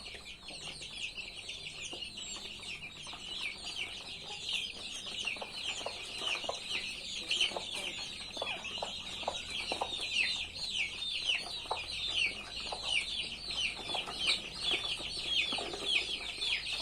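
Many chicks peeping without pause, each peep a short, high, falling note, with a hen's lower clucks joining in from about five seconds in.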